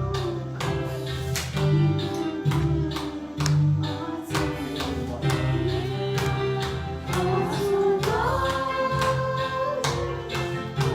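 Gospel worship song: singing with instrumental accompaniment over a steady beat.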